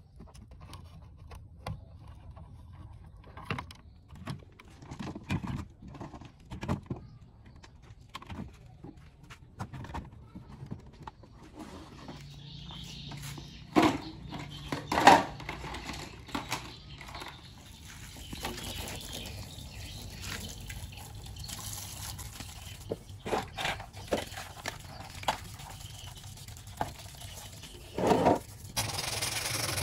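Small metal clicks and scrapes of a screwdriver working the screws of a rusty steel cassette-deck case, then two loud knocks about halfway through as the deck is set down on concrete. After that comes water splashing and dripping as the disassembled chassis is washed.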